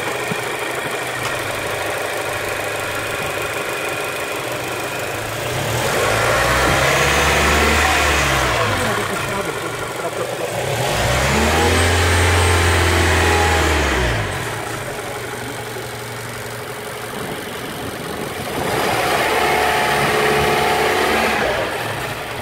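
Third-generation Mazda 3's Skyactiv petrol four-cylinder engine idling and revved three times, each rev rising and falling back to idle: about six, eleven and nineteen seconds in, the middle one the loudest.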